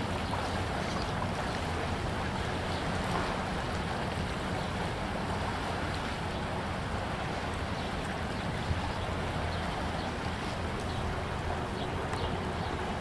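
Steady rushing and lapping of Mississippi River floodwater spilling over its bank, mixed with wind buffeting the microphone.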